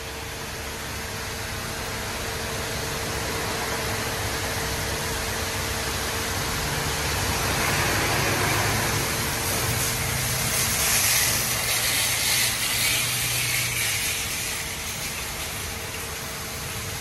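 PDQ LaserWash 4000 touchless car wash machinery at work: a steady hiss and hum that swells, loudest about ten to thirteen seconds in, then eases off as the gantry passes.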